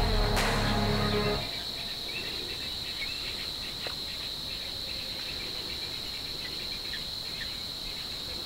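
Background music ending about a second and a half in, leaving a steady high-pitched insect chorus with faint short chirps over it.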